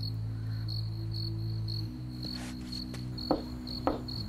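A cappella intro: a low, sustained sung bass chord that shifts once about two seconds in, under steady, evenly pulsing cricket-like chirping. Two sharp knocks on a door come in the second half.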